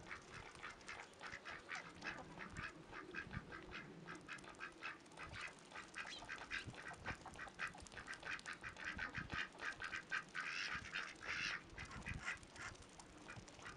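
Ducks and young geese calling in a quick run of short repeated notes, several a second, with a brief harsher, noisier stretch about ten and a half seconds in.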